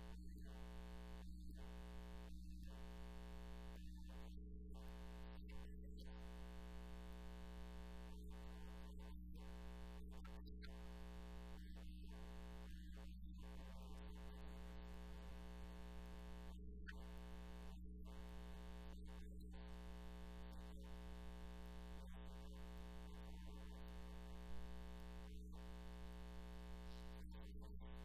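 Faint, steady electrical hum with many overtones, unchanging throughout, with one brief knock about 24 seconds in.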